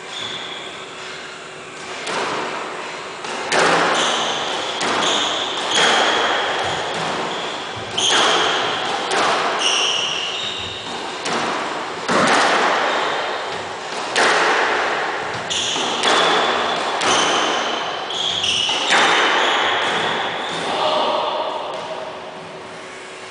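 Squash rally: the ball is struck by rackets and smacks off the court walls about every one to two seconds, each hit echoing in the enclosed court, with short high squeaks of shoes on the wooden floor between shots. The rally stops near the end.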